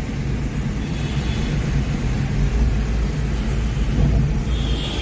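Steady low rumble of engine and road noise inside a moving car.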